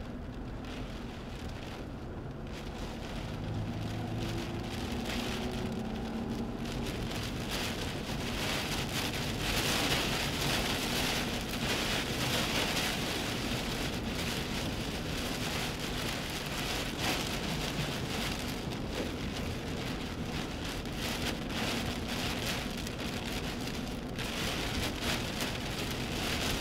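Heavy rain and strong wind lashing a moving vehicle, growing louder about eight seconds in as it drives into a tornado's circulation.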